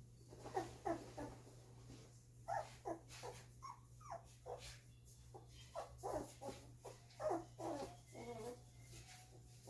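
Two-week-old golden retriever puppies whimpering and crying: a steady run of short, high cries, many falling in pitch.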